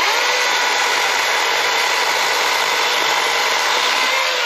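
Husqvarna Power Axe 350i battery chainsaw spinning up suddenly and running at full speed with a steady whine as it cuts into an overhead branch.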